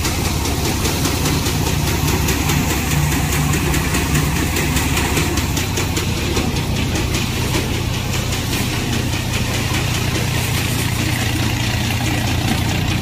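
Tractor-powered paddy threshing machine running steadily while bundles of rice are fed into its drum: a constant engine drone under the rushing, rattling noise of the thresher.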